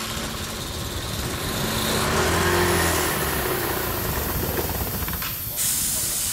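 A machine running with a steady, loud rushing noise. A low hum strengthens about two seconds in, then eases, and the sound cuts off abruptly at the end.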